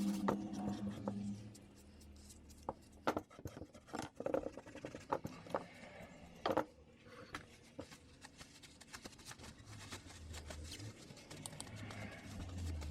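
Scattered sharp metal clicks and scrapes from a pair of rusted hand pruners being handled and cleaned, a few of them loud.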